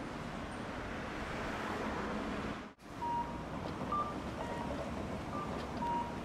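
Steady street traffic noise that cuts out briefly about three seconds in, followed by several short, high electronic beeps at two alternating pitches.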